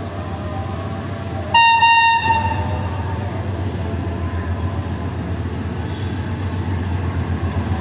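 Pakistan Railways diesel locomotive approaching with a steady low engine rumble that slowly grows louder. About a second and a half in, it sounds one short, loud horn blast.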